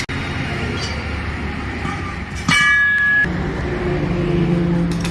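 Roadside traffic noise. About halfway through, a loud ringing tone with several pitches sounds for under a second, followed by a steady low drone.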